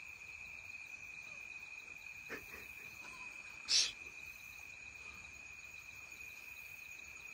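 Crickets trilling in one steady, unbroken high chorus, with a single short hiss about four seconds in.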